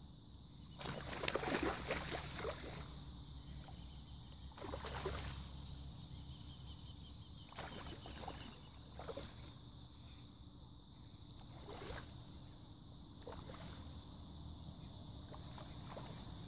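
A hooked tararira (trahira) thrashing and splashing at the water's surface close to shore. A loud run of splashing comes about a second in, then shorter splashes every second or few seconds.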